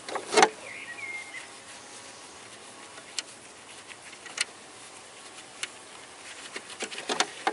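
Sharp clicks and a knock of small metal parts as a gloved hand fits a nut onto the windshield wiper motor linkage, the loudest knock with rustling about half a second in, then single clicks about a second apart and a quick run of clicks near the end. A bird chirps briefly near the start.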